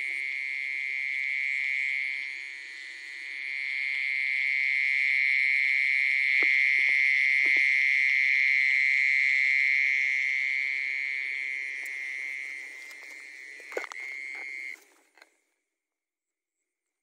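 Frogs calling in a loud, continuous high trill. It dips briefly about three seconds in and cuts off suddenly about fifteen seconds in.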